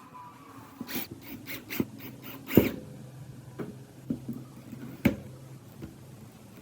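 A run of sharp knocks and clacks, about five in quick succession with the loudest about two and a half seconds in, then a few single knocks, over a low steady hum.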